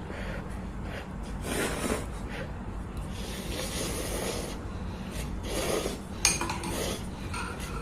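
Cutlery scraping and rubbing against dishes during eating, a string of short scrapes with one sharper clink about six seconds in.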